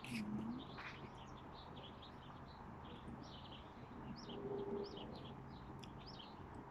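Birds chirping faintly in the background: a run of short, high chirps, one after another.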